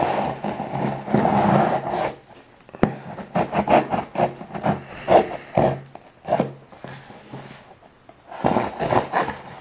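A blade scraping and slitting packing tape along the top seam of a cardboard box. It starts with one long rasping pass, then comes a run of short separate strokes.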